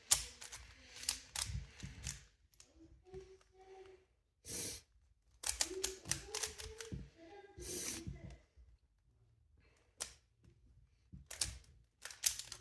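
Plastic 3x3 Rubik's cube being turned by hand, layers clicking and clacking in quick irregular runs as an algorithm is worked through, with short pauses between turns.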